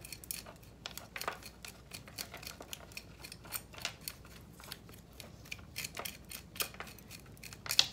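Small root rake scraping and combing through a bonsai's root ball of compost and coarse pozzolana grit. It makes irregular short scratches and crackles, several a second, with a louder scrape near the end.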